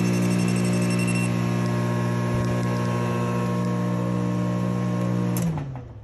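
Samsung microwave oven running with a deep, heavy hum while it fails to heat, the kind of hum the technician says usually, not always, points to the magnetron. About five and a half seconds in the hum drops in pitch and stops as the oven shuts off.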